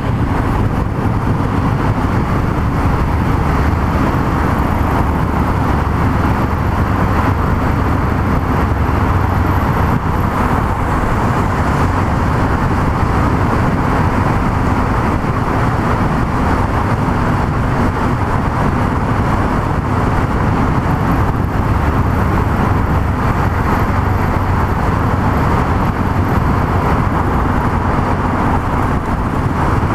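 Yamaha MT-03 660's single-cylinder engine running at a steady cruising speed, mixed with wind and road noise.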